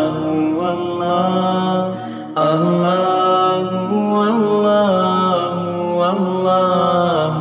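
Background vocal music: a voice chanting a slow melody in long held notes that slide from one pitch to the next. It breaks off briefly about two seconds in and then picks up again.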